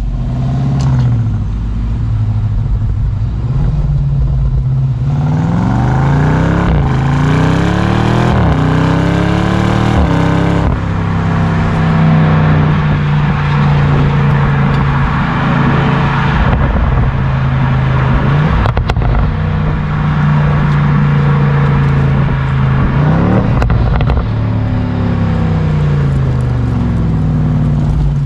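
BMW M550i's 4.4-litre twin-turbo V8 heard close up through its AC Schnitzer quad exhaust: the engine climbs in pitch in several quick runs through the gears, then holds a steady note while cruising, and falls and rises again near the end. A single sharp click about two-thirds of the way in.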